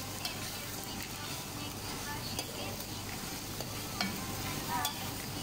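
Beaten eggs frying in an aluminium pan, sizzling steadily while a metal spoon stirs them, with a few light clicks of the spoon against the pan and a short warbling chirp near the end.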